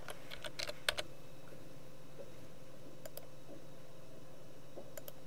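Computer keyboard keystrokes typing a short word in the first second, then two mouse-button clicks about two seconds apart, each a quick double click of press and release. A faint steady hum runs underneath.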